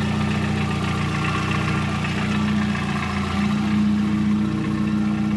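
Volkswagen Gol's 1.0-litre 8-valve four-cylinder engine idling steadily when warm, with an irregular loose-sounding clack under the idle. The owner guesses a knocking piston pin or piston skirt.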